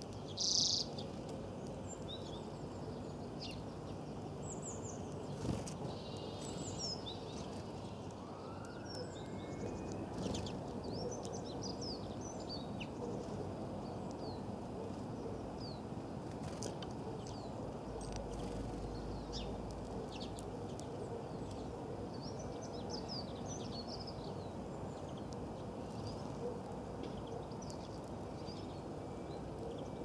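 Small songbirds chirping and twittering in scattered short, high calls, the loudest about half a second in, over a steady outdoor background hiss.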